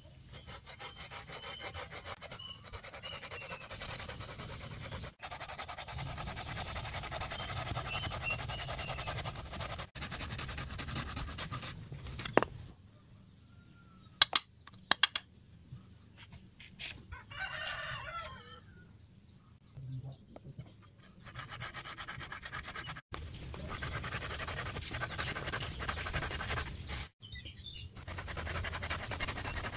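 Homemade saw made from a steel spoon, its handle cut into teeth, rasping back and forth through a green branch in rapid, even strokes. The sawing stops for several seconds partway through, with a few sharp clicks in the pause, then starts again.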